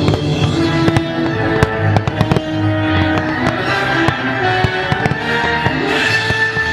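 Fireworks bursting and crackling in quick succession, a dense run of sharp bangs, over music with held notes that the display is timed to.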